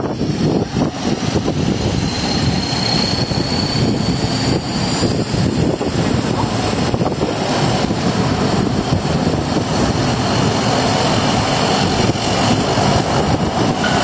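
Aircraft engine running, loud and steady, with a faint high whine rising about two seconds in.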